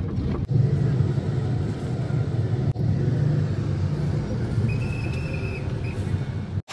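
Steady low rumble of a car ride heard from inside the cabin: engine and road noise of a van-type passenger car moving slowly in traffic.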